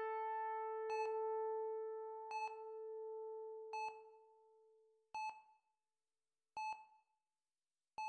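Patient heart monitor beeping steadily, six short beeps about a second and a half apart. A held keyboard chord rings under the first few beeps and fades out about five seconds in.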